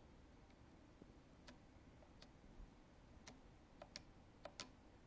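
Faint, irregular plastic clicks, about seven of them with two quick pairs near the end, as an analog thumb joystick is pushed to step through a menu.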